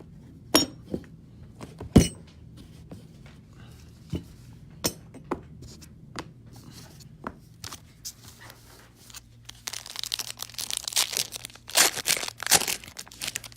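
Scattered light clicks and taps of trading cards and packaging being handled, then, from about ten seconds in, a card pack's wrapper being torn open and crinkled.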